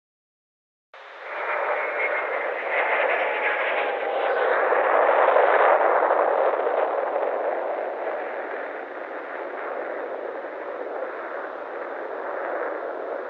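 Steady hiss of static, like a radio or broadcast signal with no program, starting about a second in after a moment of total silence. It swells through the middle and eases off a little toward the end.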